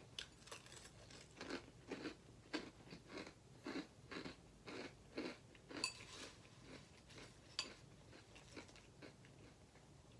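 Faint close-up chewing of a mouthful of Apple Jacks cereal: a run of crunches about two a second, coming more slowly after about six seconds.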